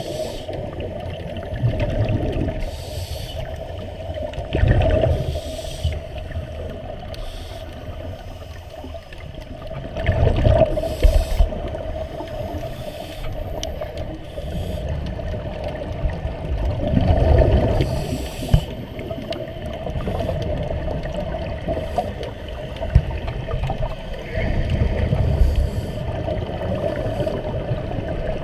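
Underwater sound picked up by a GoPro in its waterproof housing: a steady hum under a wash of water noise, with low rushing surges every few seconds.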